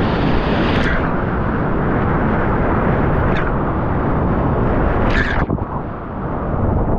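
Roar of big whitewater rapids on the Stikine River heard from right in the kayak, a loud, steady rush of crashing water, with brief splashes breaking over the boat about a second in, midway and near the end.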